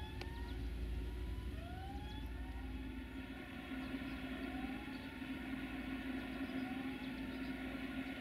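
Diesel multiple unit approaching, its engine hum growing louder partway through. Over it, a rising whoop-like tone repeats about once a second.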